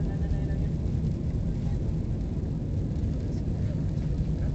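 Steady cabin noise of an Airbus A320-214 climbing after takeoff, heard from a window seat: its CFM56-5B engines and the airflow make an even, low-pitched noise that does not change.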